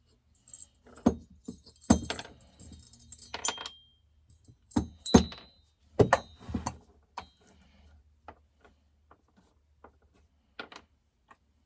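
Metal tools and chainsaw parts clinking and knocking during the teardown of a Stihl MS261 C, some knocks ringing briefly. The handling is busiest in the first eight seconds, then thins to scattered light clicks.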